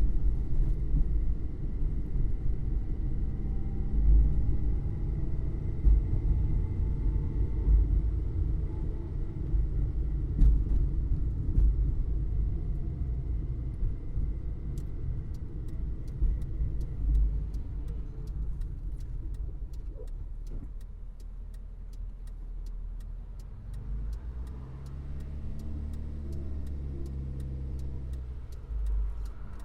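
Ford Fiesta running with a low engine and road rumble that gradually eases off through the middle, its engine note rising again near the end. From about halfway, a steady ticking about three times a second runs over it.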